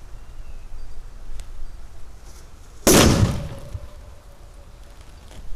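A Red Bijli firecracker going off under a steel bowl: one sharp, loud bang about three seconds in that blows the bowl into the air. A faint ringing note lingers for about two seconds after the bang.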